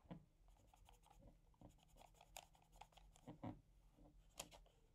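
Faint pen strokes and light ticks of a pen on paper, with a sharper tick about four and a half seconds in.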